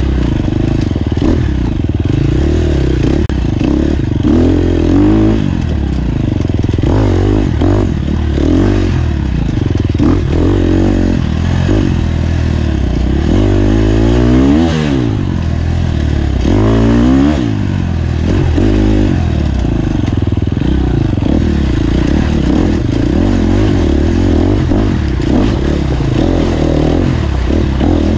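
Off-road dirt bike engine revving up and down without pause as it is ridden hard through the woods, its pitch rising and falling with throttle and gear changes, with a couple of sharper revs a little past the middle.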